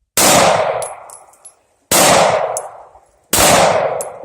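Three pistol shots from a 9mm handgun, about a second and a half apart, each followed by a trailing echo and a few small, high metallic pings.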